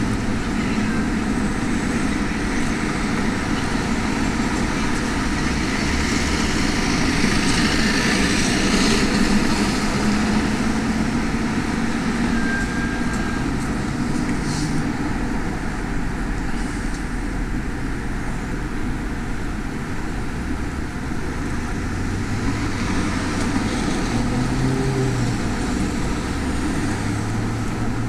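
Downtown street traffic heard from a moving bicycle: cars and larger vehicles going by over steady road and wind noise, swelling about eight seconds in and again near the end.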